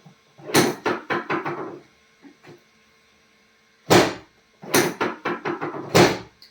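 Sharp knocks and thuds from a chiropractic adjustment: a quick run of them from about half a second to nearly two seconds in, one loud knock about four seconds in, another run around five seconds, and a last loud knock around six seconds.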